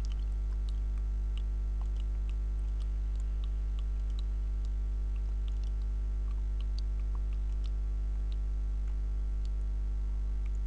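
Steady low electrical mains hum with a stack of even overtones, picked up by the recording setup, with a few faint scattered clicks over it.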